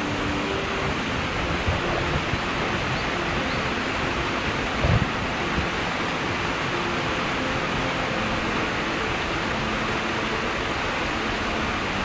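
Small waterfall running steadily over rock ledges into a stream. A single low bump comes about five seconds in.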